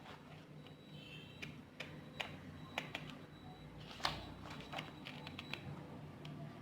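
Scattered light clicks and taps of a cardboard card box and its guidebook being handled and set down, the strongest tap about four seconds in.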